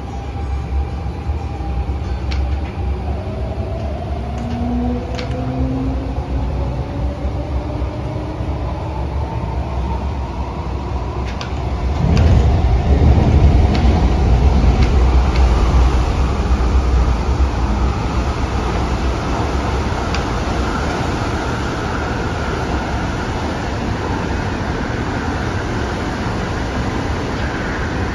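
Adtranz-CAF electric multiple unit accelerating, its traction motors giving a whine of several tones that climbs steadily in pitch. The deep rumble of the running gear grows louder about twelve seconds in and stays under the rising whine.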